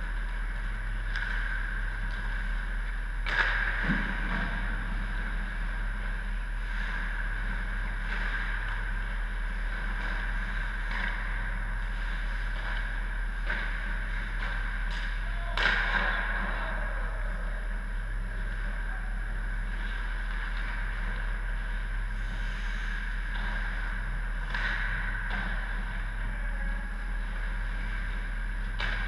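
Indoor ice hockey rink ambience: a steady mechanical hum, with a few sharp cracks of pucks and sticks from play down the ice. The loudest cracks come about three seconds in and again about fifteen seconds in.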